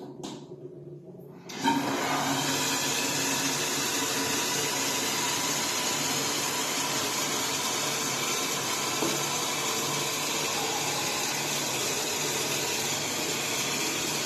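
Toilet cistern fill valve opening about a second and a half in, then a steady hiss of water pouring into the cistern at full flow: the valve works properly with its new diaphragm washer fitted.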